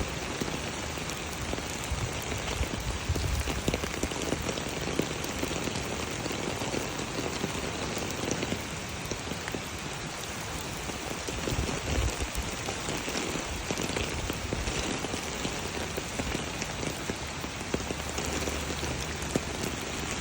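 Steady hiss of rain falling and storm water rushing across a flooded street into an overwhelmed storm drain.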